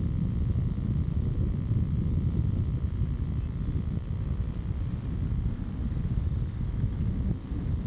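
Wind buffeting the camcorder's built-in microphone: a steady, gusty low rumble.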